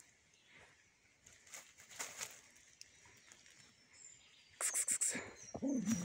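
A dog nosing and digging at an armadillo burrow, its head down the hole, stirring dry leaf litter with scattered scratches and a short burst of loud rapid strokes near the end.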